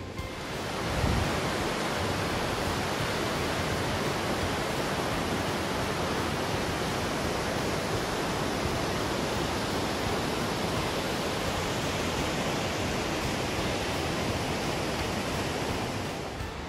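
Waterfall rushing steadily: cascading river water falling over rock ledges. It fades in about a second in and fades out near the end.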